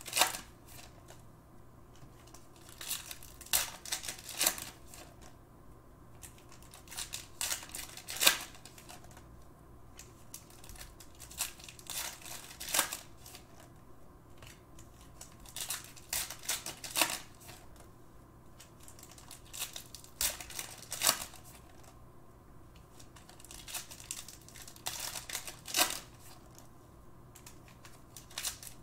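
Panini basketball card packs being torn open, the wrappers tearing and crinkling and the cards rustling in hand, in irregular short bursts every second or two.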